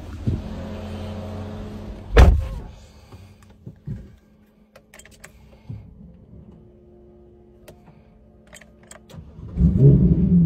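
A car door shuts with a heavy thump about two seconds in, followed by a quiet cabin with a few small clicks. Near the end the Ferrari F8 Tributo's twin-turbo V8 cranks and fires up into a loud rumble.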